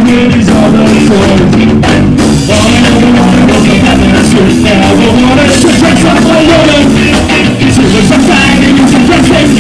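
Ska band playing live and loud: bass guitar, drum kit and trombone, with a singer's voice over them.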